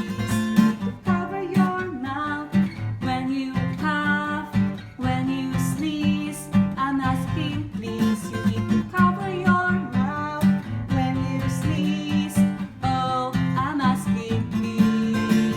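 A song: strummed acoustic guitar accompanying a sung melody.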